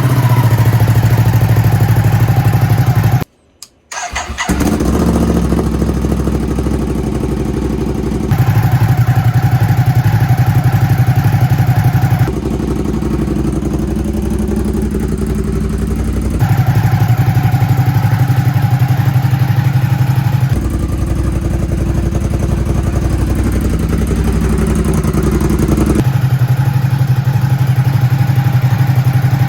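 Ducati SuperSport's L-twin engine running steadily, the sound jumping abruptly about every four seconds between a louder and a quieter exhaust note, as clips of the stock exhaust and the Competition Werkes aftermarket exhaust alternate. It cuts out briefly a little over three seconds in.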